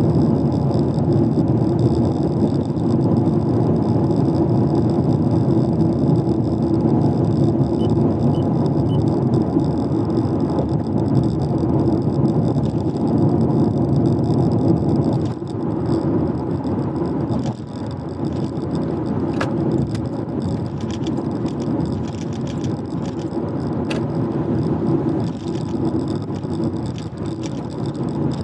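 Car on the move: a steady rumble of tyre and road noise mixed with engine hum. It eases slightly about halfway through, and a few light clicks come later.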